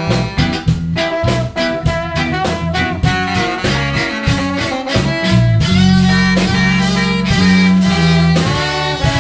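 Live gypsy-punk band playing loud and fast: drums, bass, guitar and violin. Drum hits come thick and fast at first; about six seconds in the band moves to longer held notes over a heavy low end.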